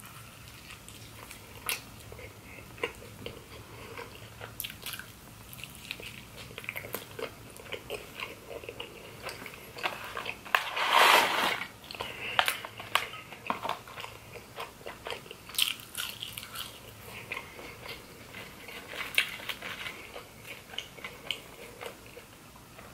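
Close-miked eating: biting and chewing a cheeseburger and fries, with many small, sharp wet mouth clicks and smacks. About eleven seconds in comes a louder rustle lasting about a second, as the paper fry carton is handled.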